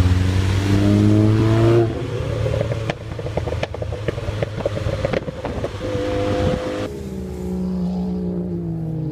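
Car engine accelerating hard, its pitch rising, then lifting off into a rapid string of exhaust crackles and pops over road and wind noise. After a cut, another car engine runs at moderate revs, its pitch sinking slowly.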